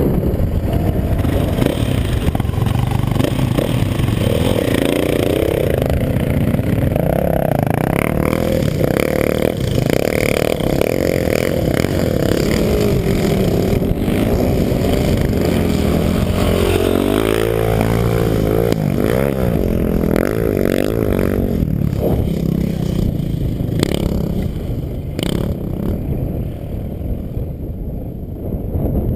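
Yamaha dirt bike engine running close to the rider-mounted camera, its pitch rising and falling as the throttle is worked, with rattling and clatter over the rough sand. It eases off somewhat near the end.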